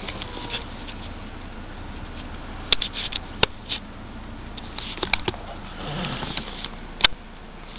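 Handling noise from a handheld camera moved about inside a parked car: light rustling and a few sharp clicks, over a steady low hiss.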